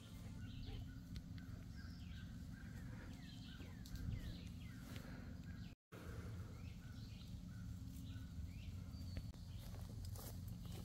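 Birds chirping: many short, quick falling chirps over steady low background noise, with a brief dropout a little over halfway through.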